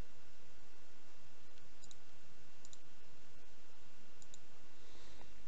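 Computer mouse button clicks, three quick press-and-release pairs, over a steady background hiss from the microphone.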